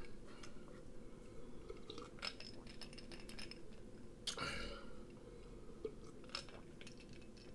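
Faint, close-up mouth sounds of a person drinking from a plastic cup: small swallows and mouth clicks, with a louder noisy stretch about four seconds in.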